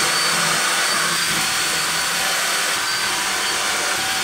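Vacuum-type blower motor running steadily, a continuous rushing hum with a faint wavering high whine.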